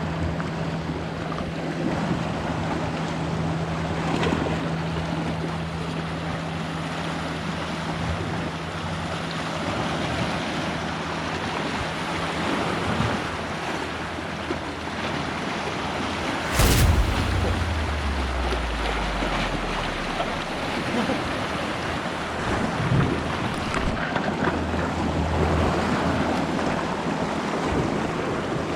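Sea waves washing on the rocks and wind buffeting the microphone, with a faint low hum in the first half and one sharp knock a little past the middle.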